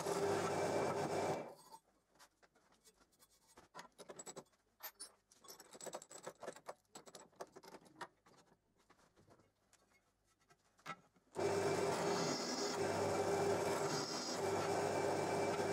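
Bench drill press running with a steady hum while drilling an aluminium plate. It stops about a second and a half in, leaving a quiet stretch of small clicks and knocks as the bit and work are handled. It starts again about 11 seconds in and runs on.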